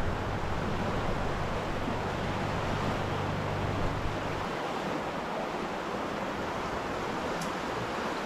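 Steady rushing of the McKenzie River flowing beneath the bridge, with a low rumble underneath that stops about halfway through.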